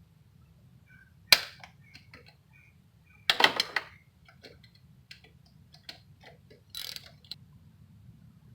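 Metal hand tools clicking and clinking while loosening the nut on the alternator's wire terminal: one sharp click a little over a second in, a cluster of louder clicks around three and a half seconds, then scattered light ticks.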